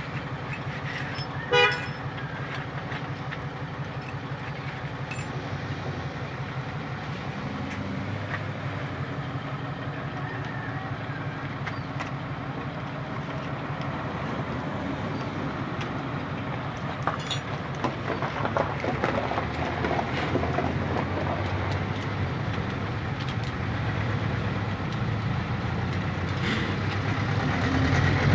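A vehicle engine running steadily with a low hum, and a short horn toot about a second and a half in.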